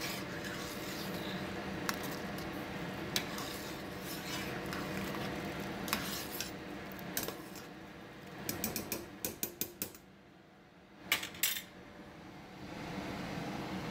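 Metal spoon knocking and scraping against the side of a stainless steel pot while stirring rice and vegetables in broth, with scattered clinks and a run of quick taps about two-thirds through.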